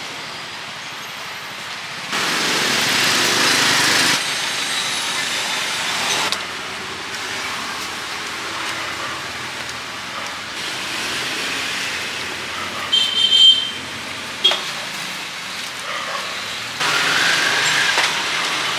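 Noisy street-side ambience with traffic: a steady hiss that changes abruptly several times, with a brief high ringing sound about two-thirds of the way through.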